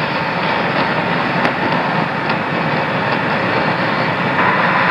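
Steady radio static from the Apollo 11 air-to-ground communications link, with a faint steady tone and a few faint clicks. It grows a little louder near the end.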